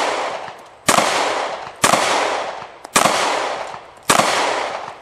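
Handgun fired in a steady string: four shots about a second apart, each trailing off in a long echo. The tail of a shot fired just before rings in at the start.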